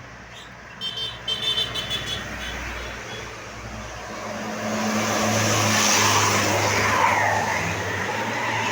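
A large diesel tour bus driving past, its engine hum and road noise growing louder to a peak about six to seven seconds in. About a second in, a few short high-pitched pulsed tones.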